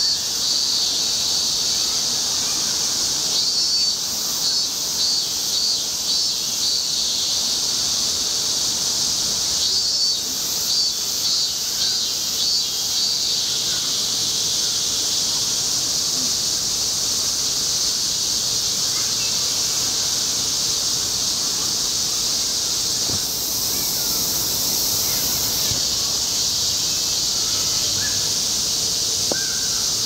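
Robust cicada (minmin-zemi) singing: runs of short, repeated high notes, about two a second, come in three spells over the first half. A steady high drone runs underneath throughout.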